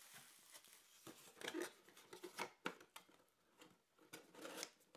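Faint rustling and crinkling of cardboard boxes and bubble-wrap packaging being handled, with scattered light clicks and taps.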